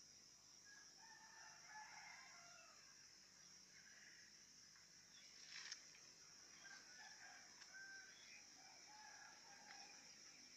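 Faint, distant rooster crowing about a second in, followed by scattered short chicken or bird calls over a steady high hiss. A single brief knock comes about halfway through.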